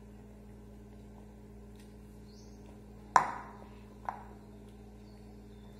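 Spoon knocking against a ceramic bowl while eating: one sharp ringing clink about three seconds in and a softer one a second later, over a steady low hum.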